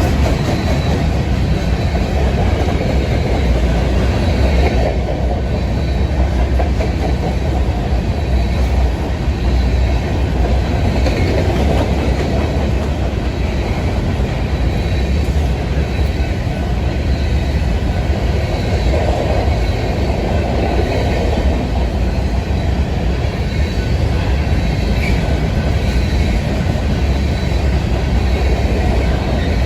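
Freight train of empty cars rolling past, steady and loud, with the clack of wheels over rail joints.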